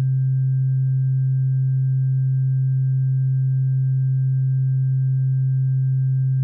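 A steady low droning tone, held without any change in pitch or loudness, with faint higher tones above it.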